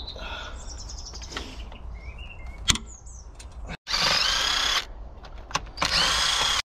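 Cordless impact wrench run in two bursts of about a second each, undoing the cylinder head bolts on a Land Rover 200Tdi diesel engine. A single sharp knock comes a little before the first burst.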